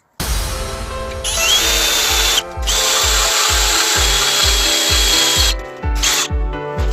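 A power tool running steadily with a high whine, cutting out briefly once and stopping near the end, over background music with a steady beat.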